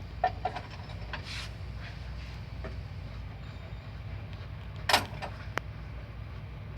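Steady low mechanical hum with a few scattered clicks and knocks of handling, the loudest a sharp clack about five seconds in.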